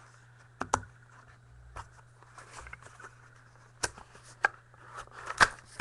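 A sealed trading card box and its wrapping being handled and opened: light rustling and crinkling, with a few sharp clicks and snaps (about a second in, twice near four seconds, and loudest near the end), over a low steady hum.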